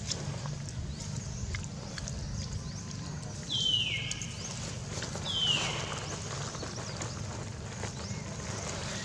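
Two short, high animal calls, each gliding down in pitch, a couple of seconds apart, over a steady low background rumble.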